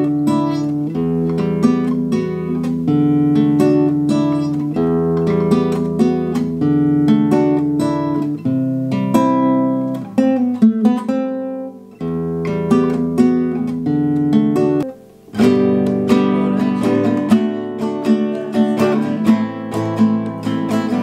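Classical guitar played live, picking and strumming a chord progression, with a couple of short breaks between phrases.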